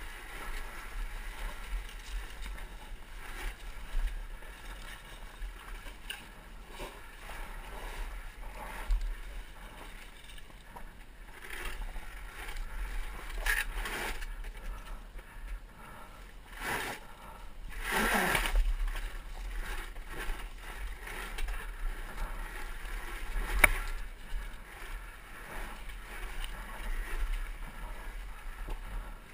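Electric dirt bike rolling over loose rocks with no engine note: tyres crunching over stones and the bike clattering, with many small knocks. A louder harsh scrape about a second long comes just past halfway, and a single sharp knock follows a few seconds later.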